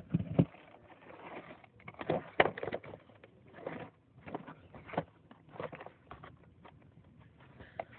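Toy packaging being handled and opened: irregular rustles, clicks and taps, loudest about two seconds in.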